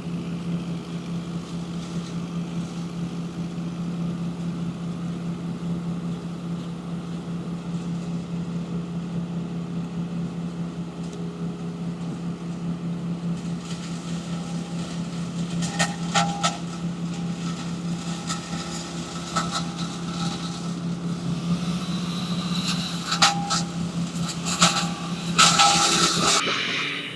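Tree-crew machinery clearing storm-downed branches. An engine runs at a steady pitch, and from about halfway through sharp knocks and cracks of wood come over it, most often near the end.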